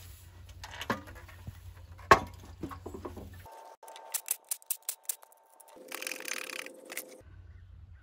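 Metal tools handled with light clicks and one sharp knock about two seconds in. Then a cordless drill spins a socket on a long extension, backing out the side-cover bolts of a Predator 212 engine: two short runs of steady motor whine, the second lower-pitched.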